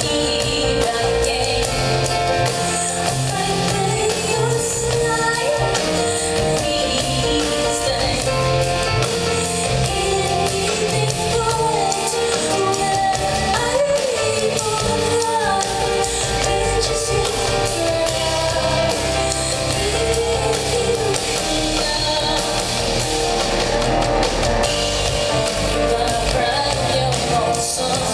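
Live band performance: a woman singing over drums and bass, recorded from the audience.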